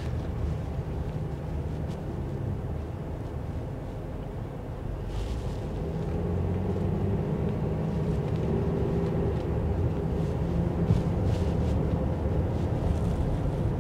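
Car engine and road noise heard from inside the cabin while driving: a steady low hum that grows a little louder about halfway through.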